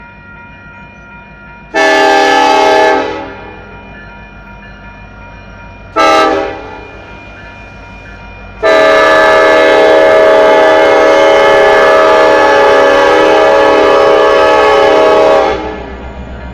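Union Pacific diesel locomotive's air horn sounding for the grade crossing: a long blast, a short one, then a long blast of about seven seconds as the locomotive reaches the crossing. The crossing bell rings steadily underneath, and a low engine rumble is left when the horn stops.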